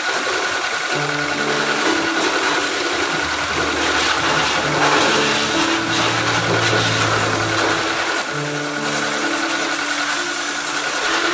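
Pressure washer spraying water: a loud, steady hiss of spray over the running machine, with music playing underneath.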